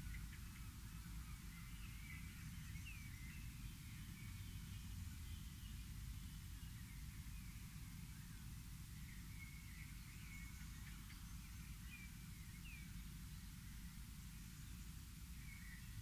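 Faint birdsong: scattered short chirps and call notes from small birds over a steady low background rumble.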